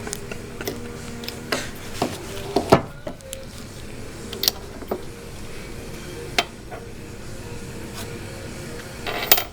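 Irregular clicks and knocks of hand work on metal parts at a workbench, over a steady low hum. The loudest knock comes a little under three seconds in, and a short clatter comes near the end.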